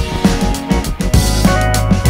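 Background music with a steady drum-kit beat, bass and guitar.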